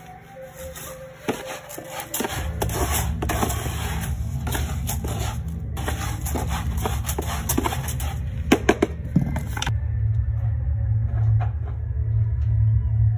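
Yellow plastic litter scoop raking and scraping through granular cat litter in a plastic litter box: gritty scraping with many sharp clicks, stopping suddenly about ten seconds in. Low background music with a pulsing beat comes in about two seconds in and continues.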